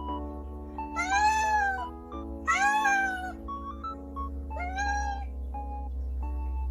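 Domestic cat meowing three times, each call about a second or less and rising then falling in pitch, the demanding meows of a cat asking for something. Soft background music with sustained notes plays underneath.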